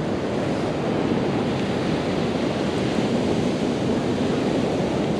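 Beach sand hissing and pouring through a long-handled metal sand scoop as it is shaken to sift out a metal-detector target, a steady rushing noise.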